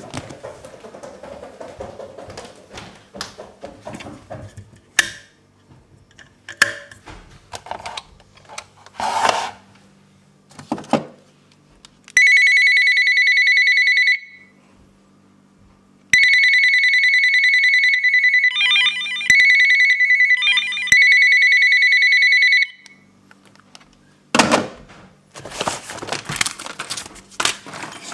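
Electronic ringing tone, loud and high-pitched and steady: it sounds for about two seconds, stops for two, then rings again for about six seconds with a couple of brief warbling breaks. Before it come scattered light clicks and knocks, and near the end a stretch of clattering.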